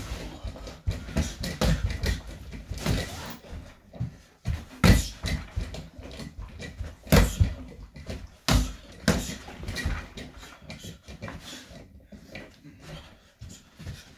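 Punches landing on a free-standing reflex bag, a punching ball on a pole with a weighted base, in a quick irregular run of thuds. The hardest hits come about five and seven seconds in, and the blows thin out in the last few seconds.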